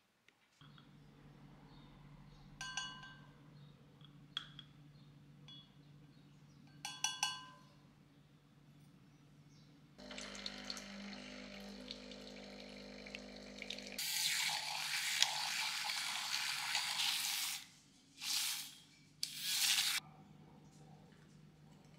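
Two light glassy clinks, then a countertop water dispenser running for about four seconds as it fills a glass measuring jug, followed by a few seconds of loud rushing liquid noise and two short splashy bursts near the end.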